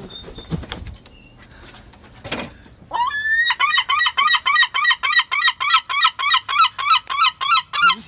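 Herring gull giving its long call: a run of loud, rapid laughing cries, about four a second, that starts about three seconds in and carries on past the end. A brief knock comes before it.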